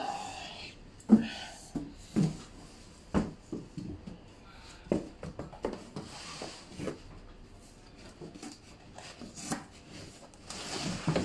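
Cardboard scraping and rubbing with irregular dull knocks as a mountain bike and its packaging are shifted inside a cardboard shipping box.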